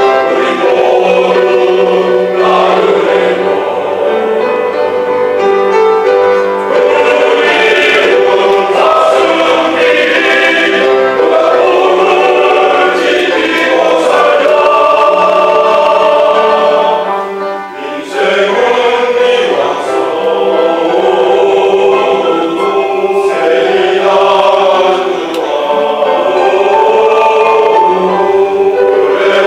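Choir of men and women singing in harmony, with a brief break between phrases a little past halfway.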